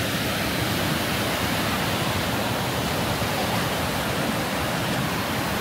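Steady rushing of water.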